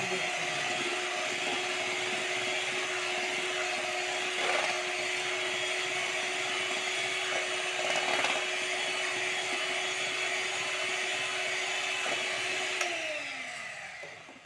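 Electric hand mixer running steadily, its beaters whisking a liquid cream mixture in a steel bowl. Near the end it is switched off and the motor's whine falls in pitch as it winds down.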